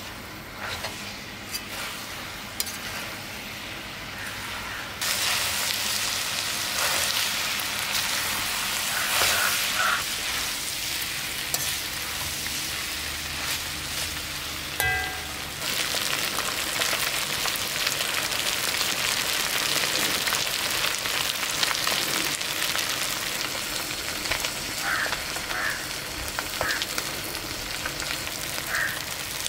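Beef pieces sizzling and crackling in hot oil in a large metal kadai as a metal spatula stirs and scrapes through them, dry-roasting the meat for a Kerala beef fry. The sizzle steps up louder about five seconds in.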